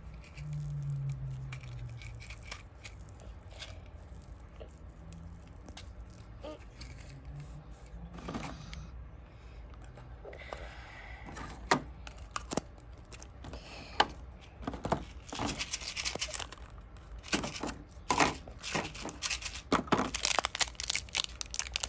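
Plastic toy packaging being handled and torn open: crinkling, tearing and scraping with scattered clicks of small plastic parts, busier in the last several seconds.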